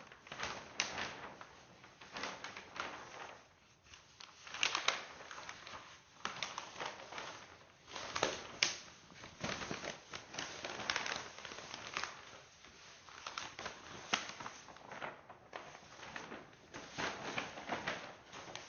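Building work: irregular scraping, rustling and clattering of materials, with sharp knocks and clicks and short pauses between them.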